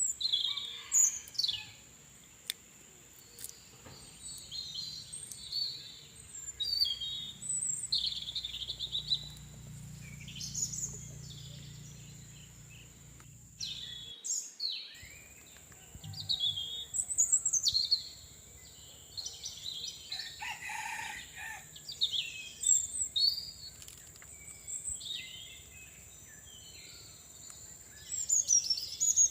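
Birds chirping and calling, many short high calls one after another, over a steady high-pitched hiss or whine. A longer, lower call stands out about two-thirds of the way through.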